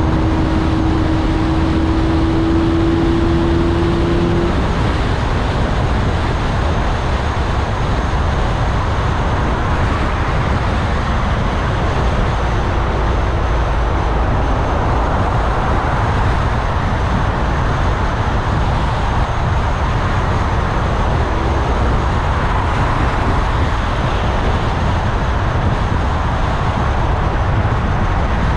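Steady road and engine noise of a car driving through city traffic, with a steady single tone held for the first four seconds or so and then stopping.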